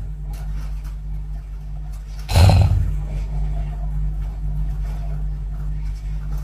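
A woman snoring on the out-breath: one loud snore about two seconds in, over a steady low hum.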